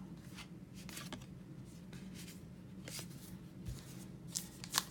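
Baseball trading cards being handled and flipped through: faint soft slides and light taps, a few scattered strokes with more near the end, over a steady low hum.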